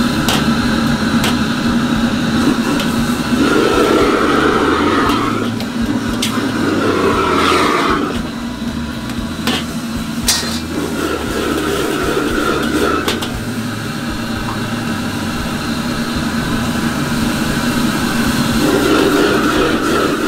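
Commercial gas wok burner running loud and steady, with a metal ladle clanking sharply against the steel wok several times. It gets louder near the end as the cook starts stir-frying.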